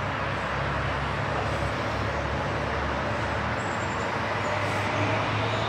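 Steady rumble of road traffic with a low hum underneath.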